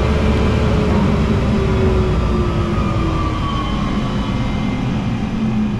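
Oneida 5 hp Dust Gorilla Pro cyclone dust collector, switched off by its remote and winding down: loud rushing air with a motor whine that slowly falls in pitch as the impeller slows.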